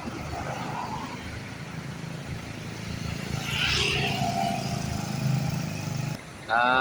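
Bus engine running at the terminal, its low rumble building steadily, with a brief hiss about halfway through. The rumble cuts off abruptly about six seconds in.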